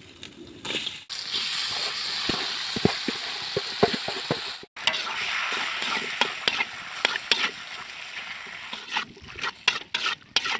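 Raw chicken intestines sizzling in hot mustard oil in a metal wok, stirred with a spatula that scrapes and clicks against the pan. The sizzle starts loudly as they go in, about a second in.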